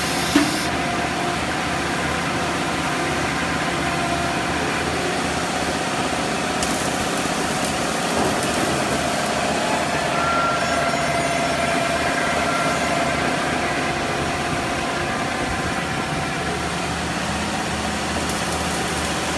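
Pallet-rack step beam roll forming machine running steadily: a constant mechanical din of its motors and roller stands forming steel strip, with a steady whine over it. A single sharp knock comes about half a second in.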